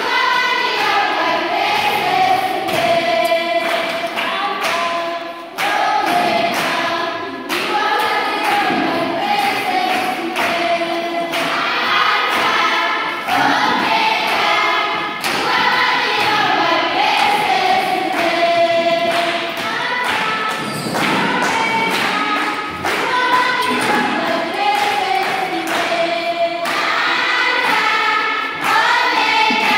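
A choir of schoolgirls singing together, with a thumping beat running under the song.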